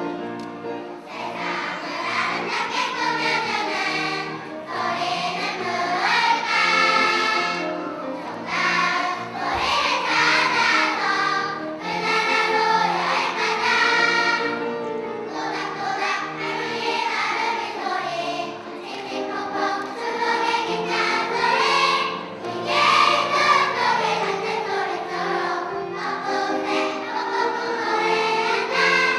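Kindergarten children's choir singing a song together, accompanied on grand piano.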